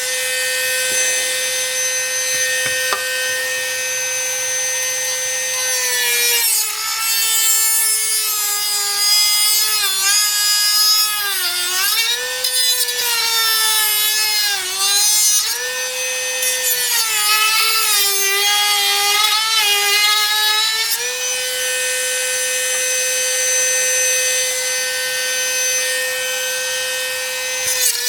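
High-speed power cutting tool running as a plate is cut out. It holds a steady high whine for the first six seconds and again over the last seven, and in between the pitch repeatedly sags and recovers as the tool bites into the work under load.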